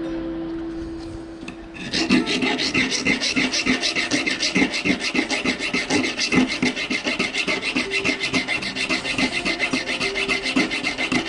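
Fast, steady back-and-forth scraping strokes of a copper ring being filed or sanded down by hand at its raised solder seam, starting about two seconds in after a little background music.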